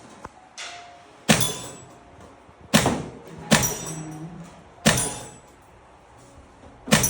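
A gun fired repeatedly at a shooting range: five sharp shots about one to two seconds apart, each followed by a brief ring, with a fainter click-like report before the first.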